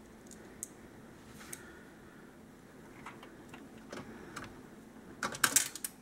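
Small screwdriver turning screws into a microwave control board's plastic housing: scattered light clicks and taps of metal on screws and plastic, with a quick run of louder clicks near the end.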